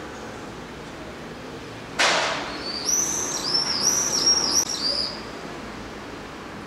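Young gulls calling: a run of six or seven high, thin whistled notes over about two seconds, each rising then falling. They follow a sudden loud whoosh about two seconds in.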